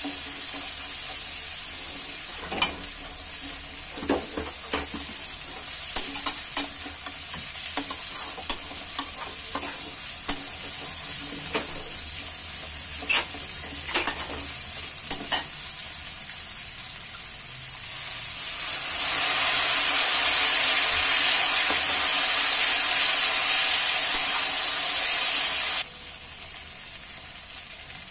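Mutton pieces frying in oil in a metal kadai, sizzling steadily while a metal spatula stirs them, with sharp clicks and scrapes of the spatula against the pan. About 18 seconds in the sizzling grows louder for several seconds, then drops suddenly near the end.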